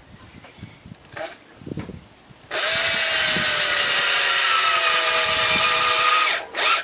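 Cordless drill running for about four seconds, drilling through the screw hole of a plastic horseshoe into the hoof, its whine sinking slightly in pitch, then stopping; a short second burst of the drill near the end.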